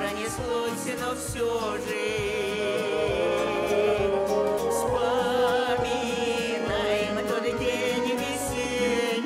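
A song: a voice sings long, held notes with a wide vibrato over instrumental accompaniment.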